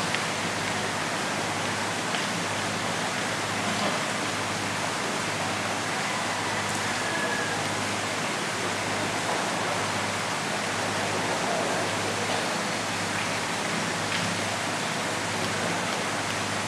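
A steady, even hiss with a faint low hum beneath it, unchanging throughout.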